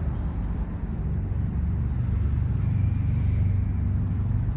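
Steady low rumble of road traffic, swelling slightly in the middle.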